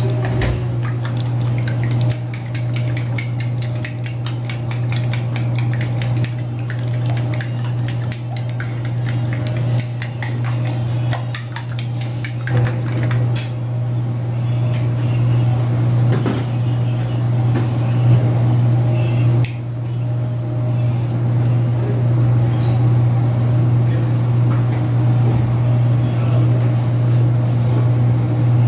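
Fork clinking rapidly against a ceramic plate while raw eggs are beaten, the clicks thinning out in the second half, over a steady low hum.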